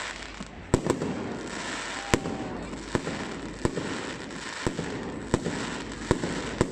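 Fireworks display: sharp bangs of bursting shells at an irregular pace, roughly one every second, over a steady background hiss.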